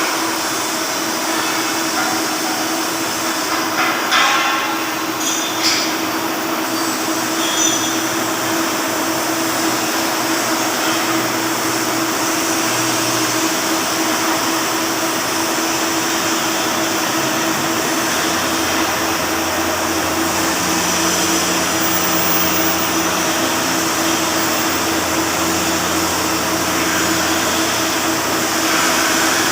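Flux-cored arc welding with 1.2 mm wire: the arc crackles and hisses steadily, over a steady machine hum, with a few short knocks about four to six seconds in.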